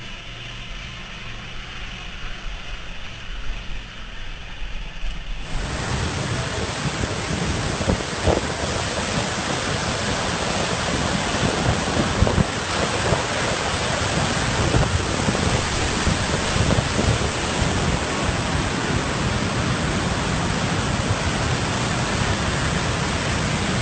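A motorcycle engine running. About five seconds in, this cuts suddenly to the steady, loud rush of a large waterfall crashing onto rocks, which fills the rest of the time.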